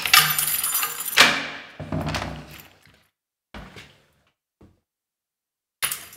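A front door being unlocked and opened: a burst of key rattling and latch clunks, then a few softer knocks, and another sharp clunk near the end.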